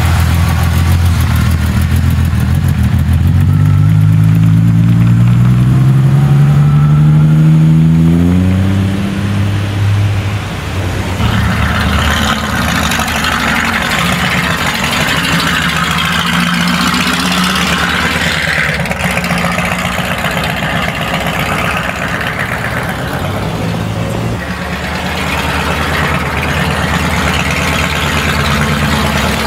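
Car engine accelerating, its pitch rising steadily over several seconds, then dropping back to a lower, steady run. A rushing hiss joins partway through and fades again before the end.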